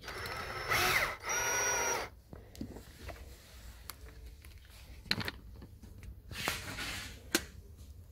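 Cordless drill-driver driving a small screw that holds a curtain strap and plate to a truck cab panel: two short motor runs in the first two seconds, the first rising in pitch and the second steady. Softer clicks and handling noise follow, with a sharp click near the end.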